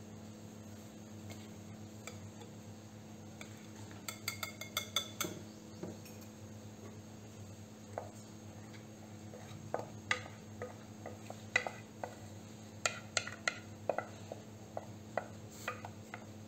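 Utensils clinking and knocking against a ceramic mixing bowl as thick batter is poured and scraped out of it: a quick run of ringing clinks about four seconds in, then scattered short knocks through the second half. A steady low hum runs underneath.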